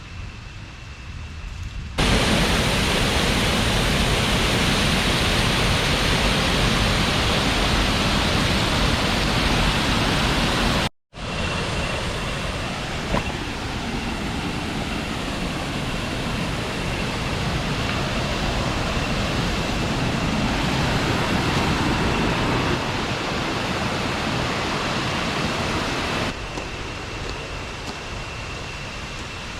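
Rushing water of the Roberto Barrios waterfalls, a loud steady rush. It jumps louder about two seconds in and breaks off abruptly twice where shots change.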